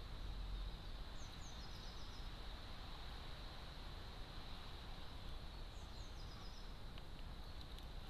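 A small songbird gives a short high phrase twice, about a second in and again around six seconds in. Each phrase is two falling notes and then a quick run of four or five short notes, over a steady hiss with a faint high whine. There are a few light ticks near the end.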